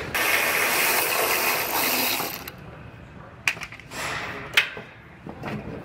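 A power driver whirs for about two seconds, backing out the sheet metal screws that hold a new steel door skin in place, then a few sharp metallic knocks as the loose skin is lifted off the door and handled.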